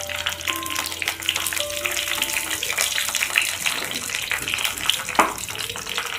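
Whole small brinjals sizzling and crackling in hot sesame oil in a clay pot, a dense steady spatter of tiny pops.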